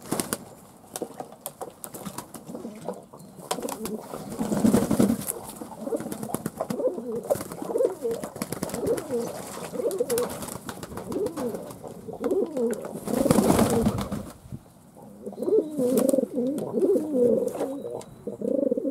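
Fantail pigeons cooing, a run of low wavering, warbling calls that overlap through most of the stretch. Short bursts of wing flapping and splashing come from birds bathing in a bowl of water, the loudest about four seconds in and again about halfway through.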